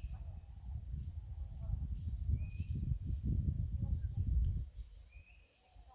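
Crickets chirring in a steady, evenly pulsing high drone, under a low rumble that fades away a little past halfway.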